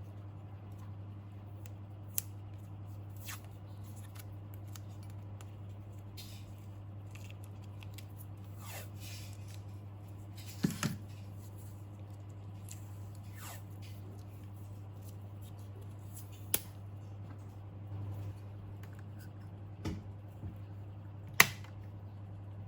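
Scattered sharp clicks and snips of hand work on small parts, loudest near the end, over a steady low hum.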